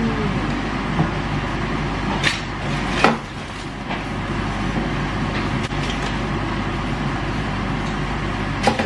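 A metal spatula scraping and knocking against a baking tray and plate a few times, loudest about three seconds in, over a steady background noise.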